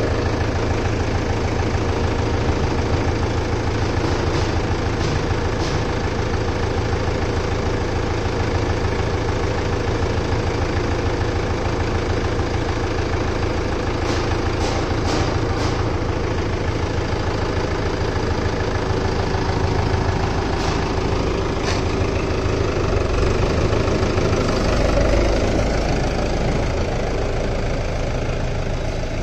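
Mahindra 585 DI tractor's diesel engine idling steadily, with a few sharp clicks in the middle. Near the end the engine's low rumble grows louder.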